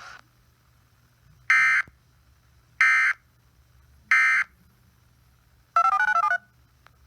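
Emergency Alert System end-of-message data bursts: three short, identical, screechy digital tone bursts about 1.3 seconds apart, marking the end of the tornado warning. They are followed near the end by a brief electronic jingle of tones stepping up and down in pitch.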